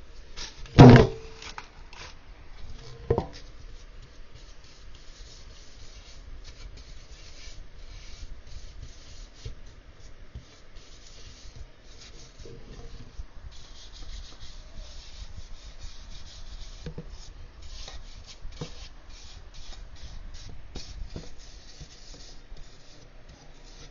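Soft, continuous rubbing and scraping as a flour-and-margarine paste is spread over the inside of a cake pan, with many faint ticks. A sharp knock about a second in and a lighter one about two seconds later are the loudest sounds.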